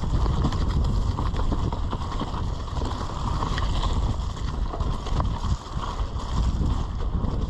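Mountain bike riding fast down a dirt singletrack: wind rushing over the camera microphone, with a steady run of knocks and rattles from the bike and tyres over bumps.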